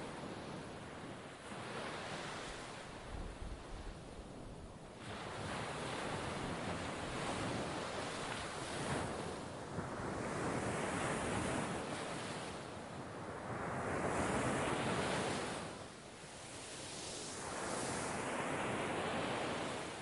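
Sea waves breaking and washing on a rocky shore, surging and falling away several times, with wind buffeting the microphone.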